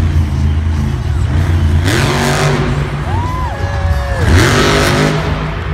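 Monster truck's supercharged V8 running with a deep, loud drone and revved hard twice, about two seconds in and again a little past four seconds, as the truck drives over a dirt ramp.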